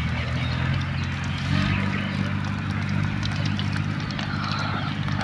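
A steady low engine or motor hum with even, humming overtones that shifts slightly in pitch about a second and a half in, with faint light ticks and clatter on top.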